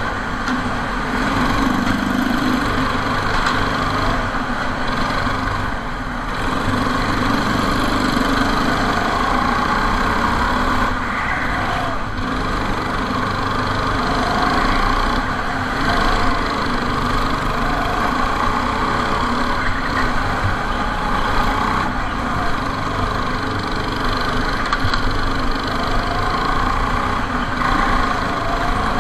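Go-kart engine running at speed from on board, its pitch repeatedly rising and falling as the kart accelerates down the straights and slows for the corners.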